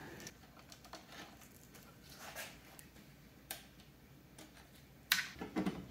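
Quiet handling of parts on the back of an opened LCD TV: a few faint scattered clicks and taps, with a sharper click about five seconds in.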